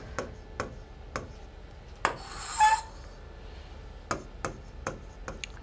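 Plastic stylus tip ticking and rubbing against the glass of an interactive display as words are handwritten, a dozen or so sharp taps spread over the seconds. About two seconds in, a louder short hiss ends in a brief pitched sound.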